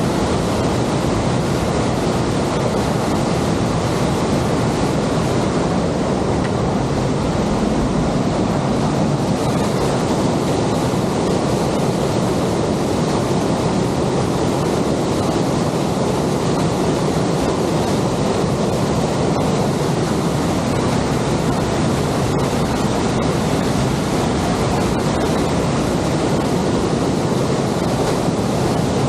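Aira Force waterfall pouring heavily after days of rain: a loud, steady rush of falling water with no breaks.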